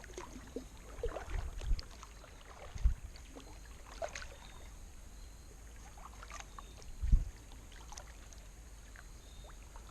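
Kayak paddle strokes: the blades dipping and splashing, water dripping off them, with a few dull low thumps.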